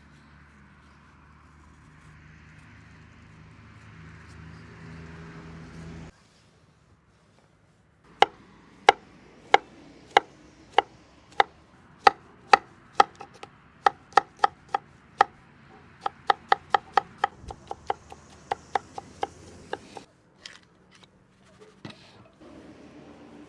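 Knife chopping on a wooden board: a run of sharp strokes, slow at first and quickening to about three a second, then stopping. Before the chopping there is a steady low noise that cuts off suddenly about six seconds in.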